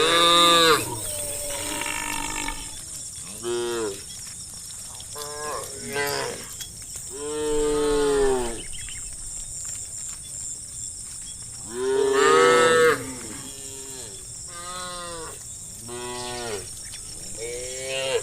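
A herd of cows mooing, with many separate drawn-out calls from several animals, some overlapping. The loudest calls come at the start, about eight seconds in and about twelve seconds in.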